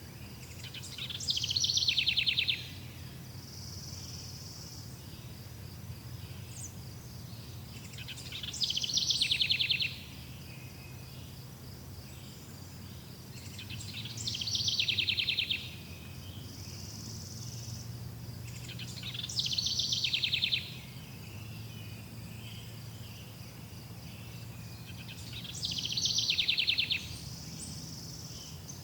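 Forest birdsong: one bird repeats a loud, fast trilled phrase about every six seconds, five times in all. Between the phrases, insects buzz faintly and steadily.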